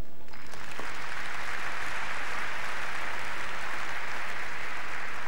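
Tennis crowd applauding at the end of a point. The clapping breaks out suddenly just after the start and then holds steady.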